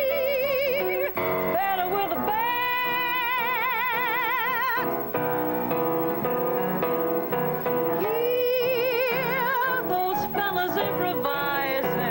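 Solo soprano singing a show tune with a wide vibrato, holding two long notes, accompanied by piano and upright bass.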